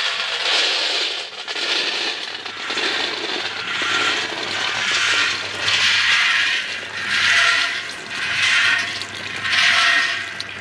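Roasted peanuts pouring out of a mini roaster's rotating drum into a stainless steel bowl, a rattling patter that surges a little more often than once a second, most plainly in the second half, as the finished batch is discharged. A faint low hum runs underneath.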